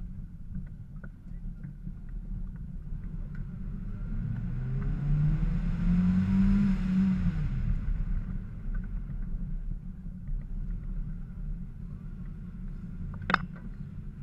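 Kia Sportage engine and tyres heard from a bonnet-mounted camera while driving on a dirt track: a steady low rumble, with the engine revving up about four seconds in and easing off again by about eight seconds. A single sharp knock near the end.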